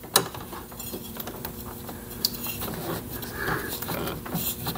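Light metal clinks and scraping as a lawn tractor's crankshaft pulley is worked loose by hand and slid down off the shaft, with a sharp click just after the start and a few more scattered clicks.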